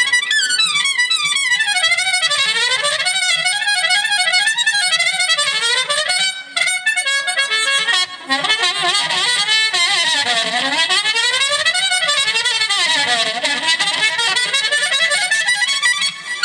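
Instrumental break in a live blues song: a lead instrument plays fast runs sweeping up and down the scale, over a steady accompaniment, with brief breaks about six and eight seconds in.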